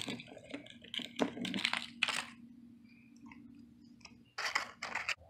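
Wrapper of a Mighty Beans surprise toy being crinkled and torn open, in several short crunchy bursts with pauses between.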